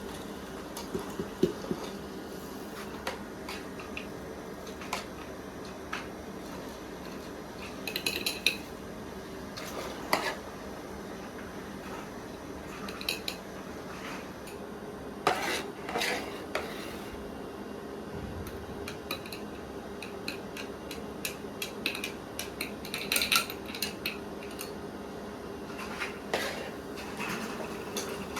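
Dishes and cutlery clinking and clattering now and then, some knocks ringing briefly, over a steady low hum.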